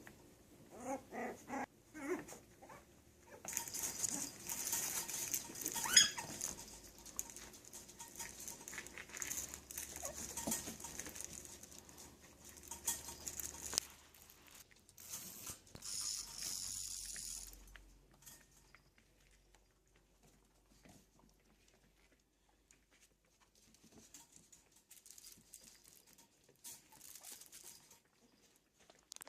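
Yorkshire Terrier puppies at play: a few short, high yips at the start, then a long stretch of rustling and scuffling with sharp clicks, and quieter scattered pattering near the end.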